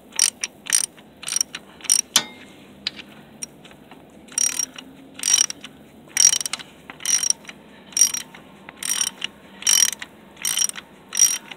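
Ratchet wrench backing out the oil drain bolt of a Honda CRF70, its pawl clicking. There are a few sharp clicks at first, then short ratcheting rasps about once a second with each return stroke.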